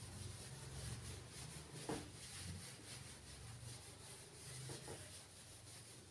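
Whiteboard eraser rubbing across a whiteboard in repeated wiping strokes, faint, with one sharp knock about two seconds in.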